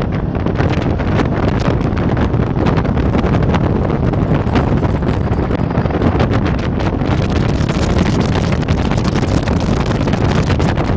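Wind buffeting the microphone on a jet boat moving at speed, over the steady noise of the boat's engine and the water rushing past the hull.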